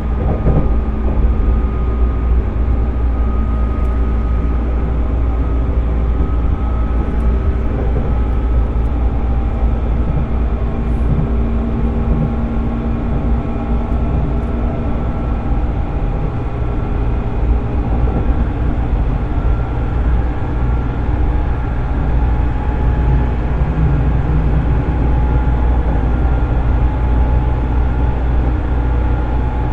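Interior running sound of a JR East 205 series electric train's motor car, with its MT61 externally fanned traction motors humming steadily over the low rumble of wheels on rail. It cruises at a fairly even speed, its motor tones holding nearly level.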